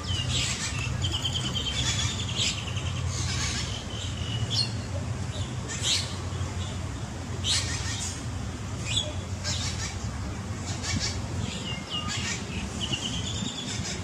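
Many small birds chirping and calling: short sharp chirps every second or so and a few brief warbling trills, over a steady low hum.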